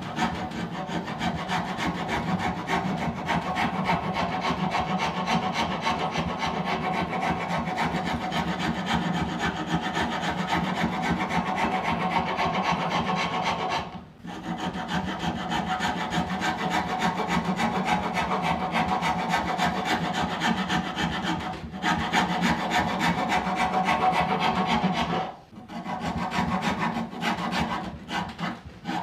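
Steel wood rasp worked by hand in quick back-and-forth strokes along the chamfered edge of a cambará table leg, shaping the taper before sanding. The scraping runs on steadily, with two short breaks, the first about halfway through and the second near the end.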